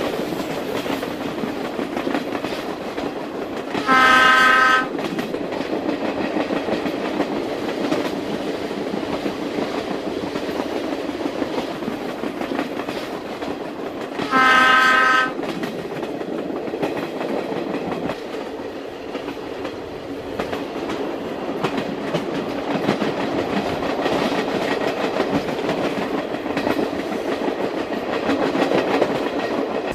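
Bidulgi-ho local passenger train, hauled by a diesel locomotive, running along the track with steady wheel clatter and rumble, its horn sounding twice in blasts of about a second, about 4 seconds in and again about 15 seconds in.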